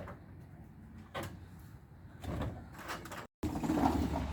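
A few separate knocks and scrapes as patio cover panels are handled and lifted into place, louder and busier near the end.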